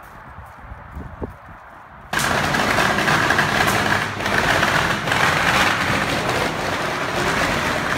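A string of firecrackers going off in a rapid, continuous crackle of sharp pops, starting suddenly about two seconds in and staying loud.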